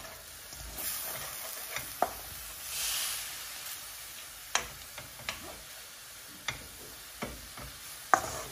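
Sliced vegetables sizzling in a hot wok as a wooden spatula stirs and tosses them, with sharp knocks of the spatula against the wok about once a second, the loudest near the end.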